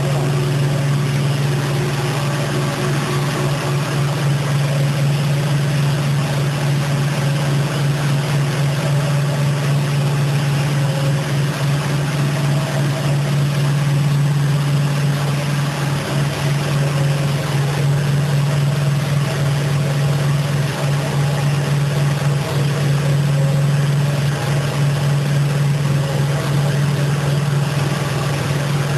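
Industrial carpet-washing machinery running: a steady, loud low hum with a constant hiss over it and no break.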